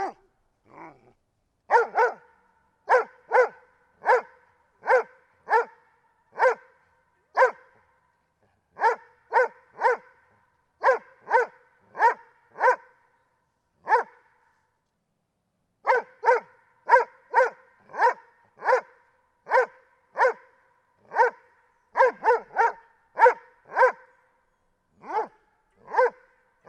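Doberman barking: a long series of short barks, many in quick pairs, broken by a couple of pauses of a second or two.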